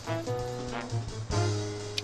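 Music: a melody of short pitched notes over a steady bass line.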